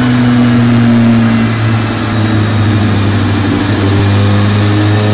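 Honda CBR400RR NC29's inline-four running steadily in gear on a rolling-road dyno, exhausting through an aftermarket end can, its pitch beginning to climb slowly near the end as the power run starts.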